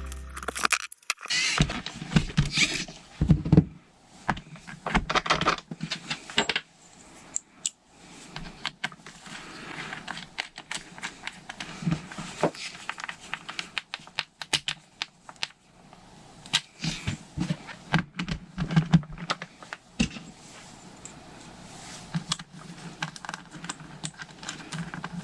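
Irregular clicks, taps and light clatter of small metal and plastic parts and hand tools being handled while the aluminium hub is refitted to a Traxxas Slash 4x4 radio-control truck. The tail of background music fades out in the first second.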